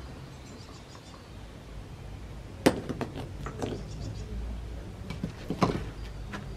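Rocks knocking against each other and the tarmac as a stone stack is handled: one sharp clack about two and a half seconds in, a few lighter knocks after it, and another sharp clack near the end, over a low steady rumble.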